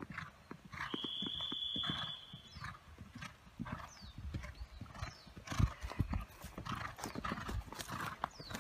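A horse galloping on turf: rapid, uneven hoofbeats that get louder about halfway through. A high, steady whistle-like tone sounds for about a second and a half starting about a second in.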